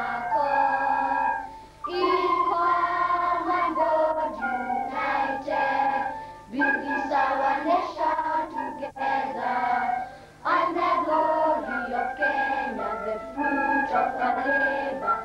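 A group of children singing together in unison, in phrases with short pauses for breath about two seconds and ten seconds in.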